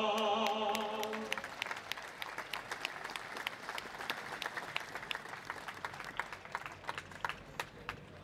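A man's held sung note ends about a second in, and an audience breaks into applause, the clapping slowly thinning out and fading.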